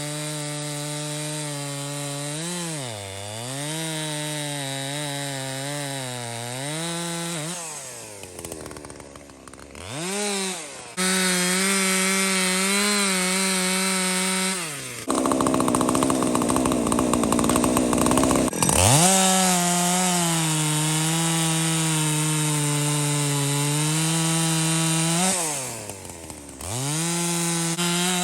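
Husqvarna 372XP clone two-stroke chainsaw running at high revs, dropping back twice. About halfway through it bogs into a few seconds of louder sawing through wood.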